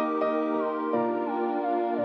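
Instrumental music: held chords with a melody line gliding down in pitch in a few steps.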